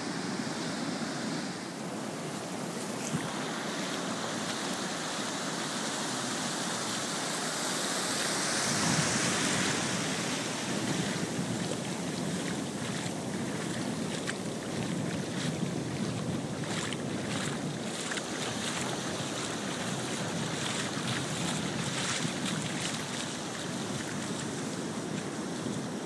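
Ocean surf breaking and washing up the sand in choppy, stormy conditions, a steady rush with a louder surge about nine seconds in. Wind buffets the microphone.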